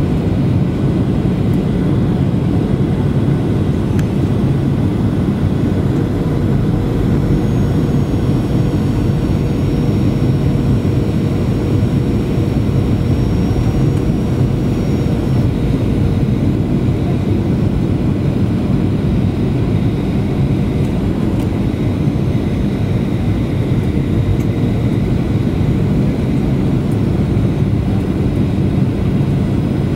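Steady cabin noise inside a Boeing 737-800 descending on approach to land: the rumble and airflow rush of its CFM56-7B26 turbofan engines, even and unbroken, with a faint thin whine above it.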